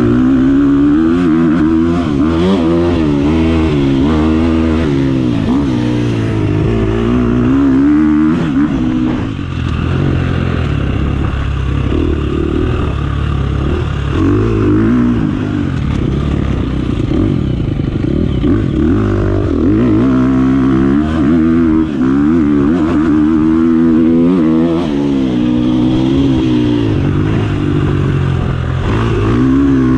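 Dirt bike engine being ridden hard, its pitch rising and falling over and over as the rider opens and closes the throttle and shifts along the track.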